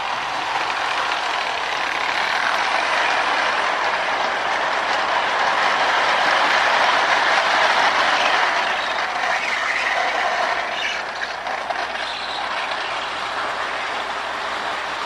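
Pre-war Marx Commodore Vanderbilt toy locomotive running on its track: a steady whirring and rattling of the electric motor, freshly fitted with new brushes, and wheels. It grows louder toward the middle, as the train comes close, then eases off.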